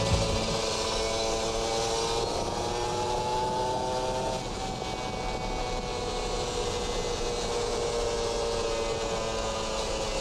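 Kawasaki Ninja 150 two-stroke single-cylinder engine running under way, heard from the rider's seat. Its pitch rises slowly, drops suddenly about four and a half seconds in, then climbs gently and eases off again near the end.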